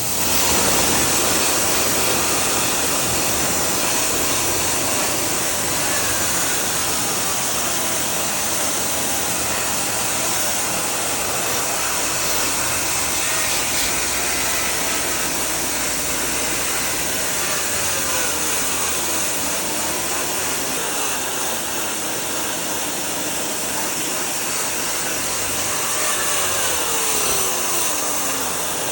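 Steady hiss of a high-pressure water spray washing air-conditioner parts, with a few faint falling whines now and then.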